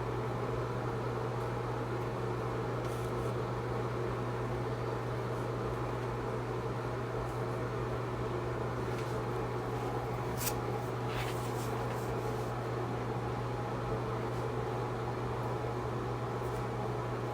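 A steady low mechanical hum over even background noise, with two faint clicks about ten and eleven seconds in.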